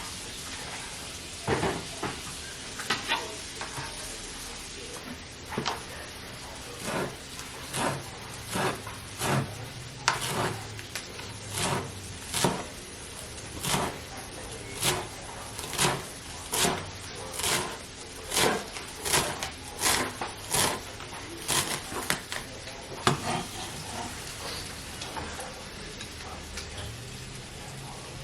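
Chicken sausage sizzling in a frying pan while a utensil stirs it in regular strokes, about one a second, which stop a few seconds before the end; the sizzle carries on under them.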